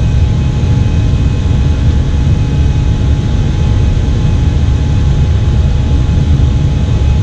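Steady cockpit noise inside an Airbus A320 flight deck during departure: an even low rumble of engines and rushing air, with a few faint steady tones over it.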